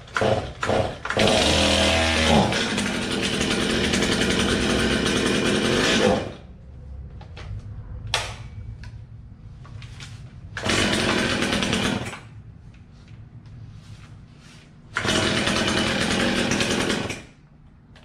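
Stihl two-stroke chainsaw being pull-started: a few quick starter-cord pulls, then it fires and runs for about five seconds before cutting out. After another pull it catches twice more, running a second or two each time and dying again. It is a long-stored saw not yet running steadily on its fuel.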